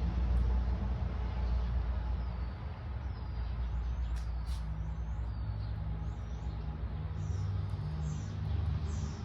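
Steady low rumble, heaviest in the first couple of seconds, with a small bird chirping over it, short sliding notes repeated about every half second to a second from about three seconds in.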